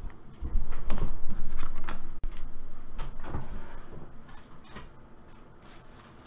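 Handling noise as fresh plastic card sleeves are fetched: a burst of low bumping and knocks with plastic rustling in the first two seconds, then a few lighter knocks and rustles that fade away.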